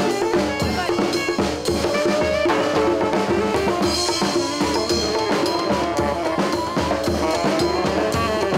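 Street brass band playing a lively tune: tuba, drums and horns over a steady drum beat.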